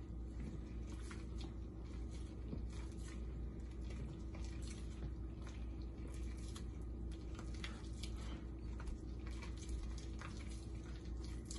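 A hand kneading and squeezing a thick batter of rice flour and blended dry cheese in a ceramic bowl: soft, irregular wet squishing and small clicks, over a steady low hum.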